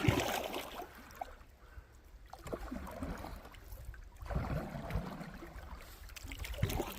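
Canoe being paddled: paddle strokes through the water, with water dripping and trickling, coming in a few uneven swells.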